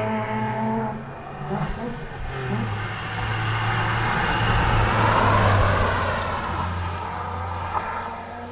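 Rally car engine running, dropping in pitch a couple of seconds in, with a rising rush of tyre and road noise that is loudest about five seconds in and then fades.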